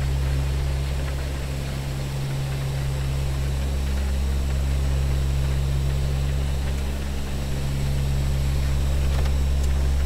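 Twin Allison 501 turboprop engines and propellers of a Convair 580, heard inside the cockpit in the climb after takeoff: a deep, steady hum with an even hiss of rushing air over it, swelling and easing slightly.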